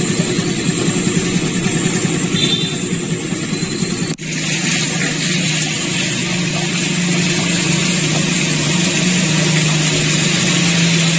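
Motorcycle engines running as they ride through a flooded street, over a steady hiss of water and traffic noise. The sound drops out briefly at a cut about four seconds in. After that a steady low engine hum runs under the noise.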